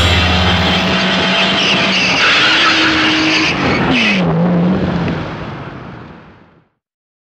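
Car tyres squealing with engine noise, a car skidding, the sound fading out near the end.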